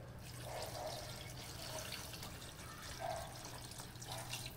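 Water poured from a jug into a large aluminium pot of chopped vegetables: a steady, fairly quiet splashing stream that stops near the end.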